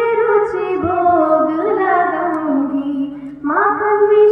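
A schoolgirl singing a Hindi Ram bhajan solo into a microphone, with long held and sliding notes. A short break for breath comes about three seconds in, then the next line begins.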